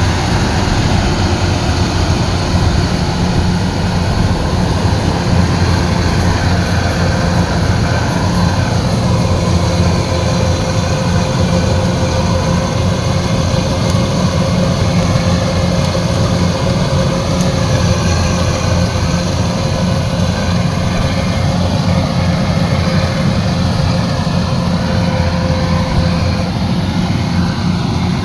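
Kubota combine harvester's diesel engine running steadily, with a steady whine held above the engine note.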